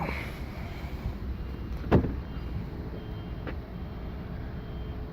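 Low steady rumble of a car, with a sharp click about two seconds in and a lighter click about a second and a half later.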